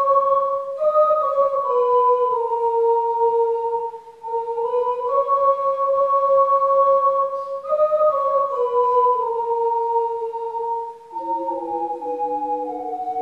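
Ocarina ensemble playing a slow hymn melody in held notes, the tune sounding in two octaves at once. There is a short break about four seconds in, and near the end a lower harmony part joins.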